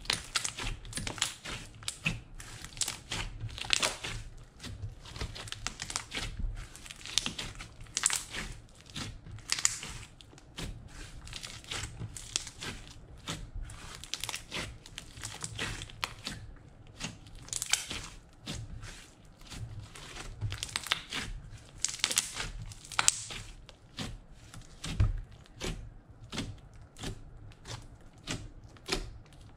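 Hands kneading, folding and poking thick blue glitter slime, making an irregular stream of small crackles, pops and squishes.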